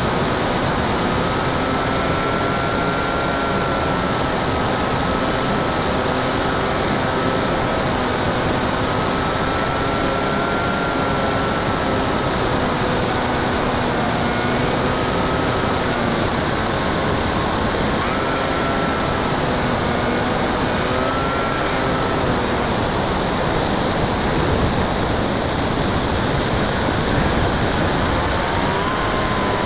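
Onboard sound of a Bixler 2 foam RC plane in flight: its NTM 35-30A 1400kv brushless electric motor and 9x6 propeller whining steadily over a constant rush of air. The whine wavers and dips in pitch a few times.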